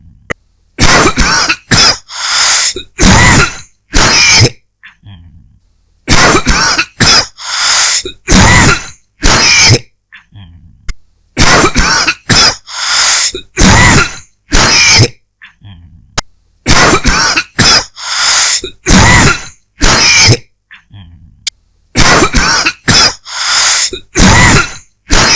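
A person coughing dry, hacking coughs in fits of about four or five coughs at a time, one fit roughly every five seconds.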